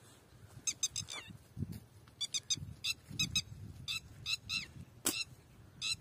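A bird giving short, high squeaky calls in quick groups of three or four, with soft footfalls on the ground beneath and a single sharp click about five seconds in.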